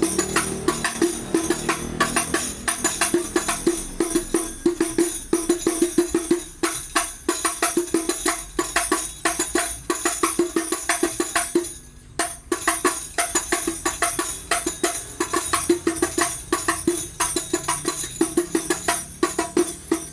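Hadroh rebana frame drums, 30 and 32 sizes, hand-played in a fast, steady rhythm to test their sound, with a bright metallic jingle over the drum strokes. The playing breaks off briefly about halfway through and stops at the end.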